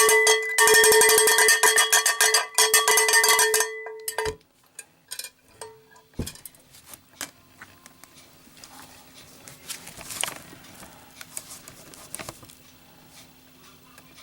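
Cowbell struck rapidly, each hit ringing, for about four seconds, then cut off with a knock. Faint clicks and knocks follow.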